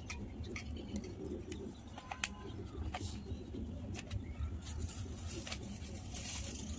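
Faint outdoor background: a steady low rumble with a few small clicks, and faint bird calls now and then.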